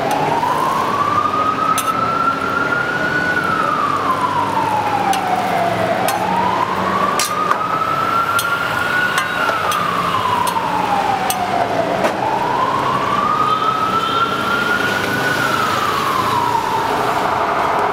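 Emergency vehicle siren in a slow wail, its pitch rising for about three seconds and falling for about three, three times over, with a few sharp clicks and a steady low rumble beneath.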